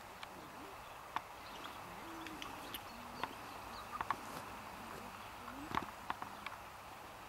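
Young European goldfinches calling: scattered short, sharp call notes, a quick cluster about four seconds in and the loudest near the end, over a few faint low tones, some sliding upward.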